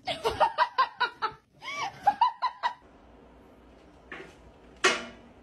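A person laughing in quick, pulsing giggles, followed by a short, loud vocal sound near the end.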